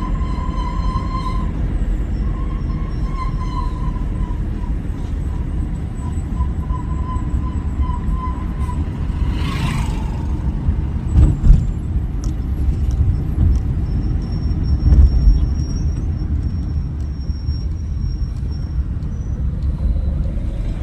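An HRTC bus running with a steady low rumble and a steady high tone over the first eight seconds or so. About ten seconds in comes a short hiss of the air brakes, and then two loud thumps a few seconds apart.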